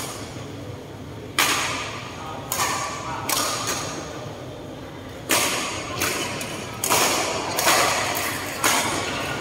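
Badminton racket strikes on a shuttlecock during a singles rally: about seven sharp hits roughly a second apart, each echoing in a large sports hall.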